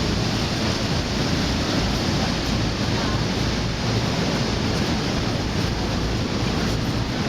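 Steady roar of the Horseshoe Falls' water pounding down close by, mixed with spray and wind buffeting the microphone.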